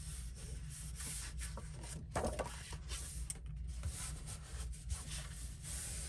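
A hand rubbing and smoothing a sheet of cardstock flat against another glued piece, a dry papery rubbing with small rustles and a brief squeak about two seconds in.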